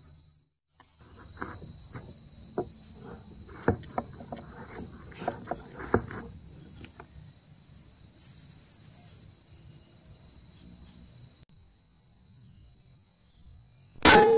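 An insect sings one steady high note, with scattered small clicks in the first half. Near the end there is a sudden loud crack.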